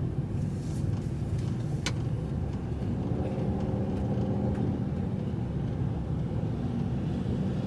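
Car engine idling steadily, with a single sharp click about two seconds in.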